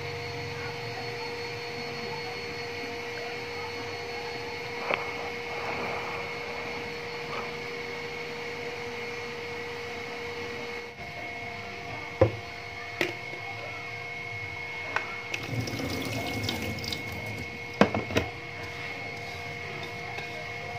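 Hands swishing and squeezing sliced shallots in a plastic bowl of salt-water brine, wet sloshing of water, with a few sharp clicks and knocks of the bowl in the second half. A steady high hum runs underneath.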